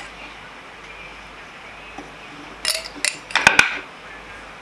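A metal fork clinking and scraping against a small glass jar. After a quiet start, a quick cluster of sharp clinks comes about two and a half to three and a half seconds in, the last ones ringing briefly.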